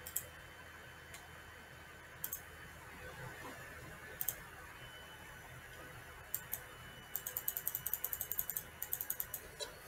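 Computer mouse clicking: a few separate clicks, then a fast run of repeated clicks for about two and a half seconds near the end.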